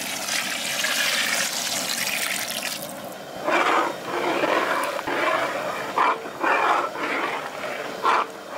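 Milk pouring in a stream into a large metal pot of thick masala gravy, a steady rushing splash that stops about three seconds in. After that, a ladle stirring the thick gravy makes irregular sloshing strokes.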